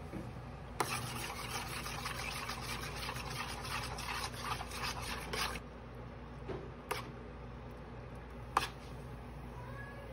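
Gravy cooking in a stainless steel pan on an induction cooktop: a dense, wet crackling for about five seconds over the cooktop's steady low hum, then a couple of light spoon clicks against the pan.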